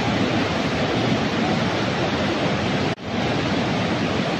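Rushing water of a flood-swollen mountain river pouring over boulders in rapids: a steady, even rush. It cuts out for an instant about three seconds in, then carries on unchanged.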